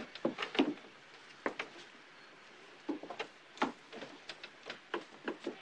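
Footsteps and light knocks as people get down from and climb onto a shoeshine stand: about a dozen irregular short taps.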